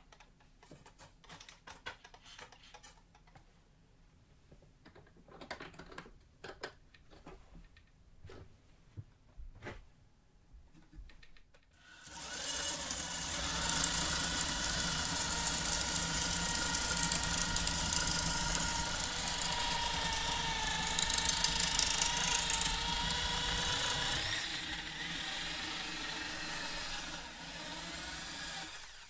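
A few light knocks and clicks of handling. About twelve seconds in, a corded electric drill starts and spins a square wooden stick through the hole of a steel-plate dowel jig, the motor whine mixed with the scraping of wood being shaved round. It eases a little for the last few seconds and stops near the end.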